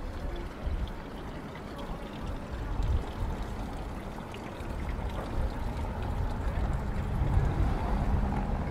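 Outdoor city street ambience: a steady rushing noise with a heavy low rumble, and a low engine hum that grows louder in the last couple of seconds.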